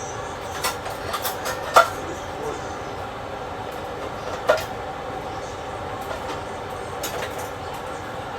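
Kitchen clatter: several sharp clinks and knocks of dishes and utensils, the loudest a little under 2 s and about 4.5 s in, over a steady mechanical hum.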